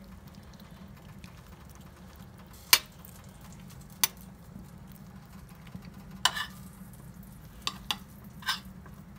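A spoon clicking against a plate about six times at irregular intervals, the first one, a couple of seconds in, the loudest, over a low steady hum.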